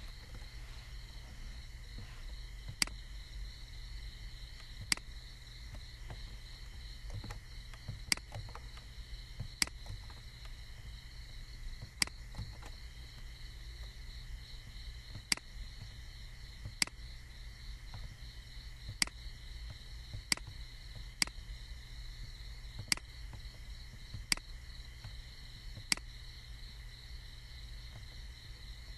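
Computer mouse clicking, about fifteen sharp single clicks at irregular gaps of one to two seconds, over a steady high-pitched whine and a low hum.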